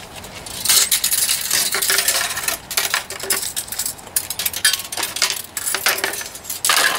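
Flat steel recoil-starter spring being wound coil by coil into the starter pulley's cavity of a Subaru EA190V engine, giving a rapid, irregular run of small metallic clicks and clinks that starts about a second in.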